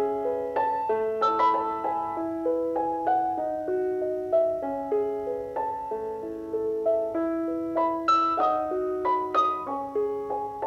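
Background piano music: a slow, gentle melody of struck notes that ring on and overlap.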